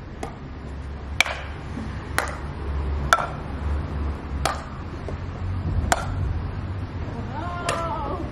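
Badminton rackets hitting a shuttlecock back and forth in a rally: about seven sharp strokes, roughly one a second.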